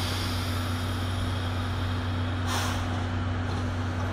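Steam locomotive (C11 class) standing at rest, giving a steady low hum, with two short hisses of released steam or air, one at the start and one about two and a half seconds in.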